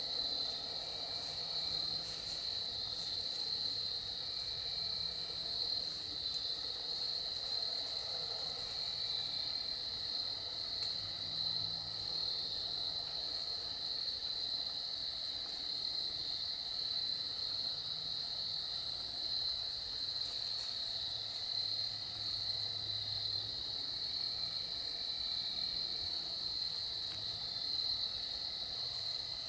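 Steady chorus of crickets and other insects, an unbroken high-pitched trill.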